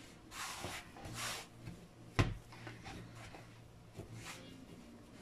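Hands kneading soft pizza dough on a wooden cutting board: soft rubbing and squishing of the dough, with one sharp knock on the board about two seconds in.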